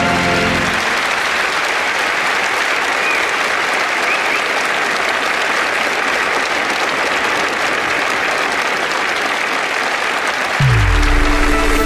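A male voice choir's closing chord cuts off within the first second, then an audience applauds steadily for about ten seconds. Near the end, music comes in with a low falling note.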